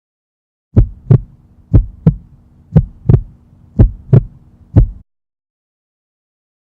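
Heartbeat sound effect: low thuds in lub-dub pairs, about one beat a second, starting just under a second in and stopping suddenly about five seconds in after four and a half beats.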